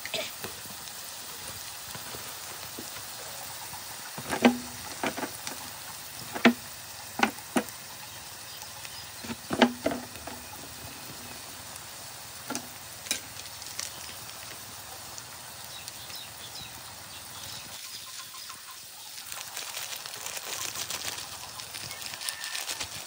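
Sliced onions, garlic and green chillies frying in oil in a wok, a steady low sizzle. A run of sharp taps and knocks comes in the first half, and the sizzle grows a little louder near the end.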